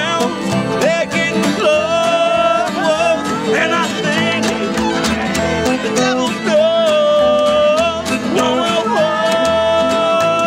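Acoustic bluegrass band playing live: strummed acoustic guitars keep the rhythm, with a lead melody of long held notes that slide into pitch over the top.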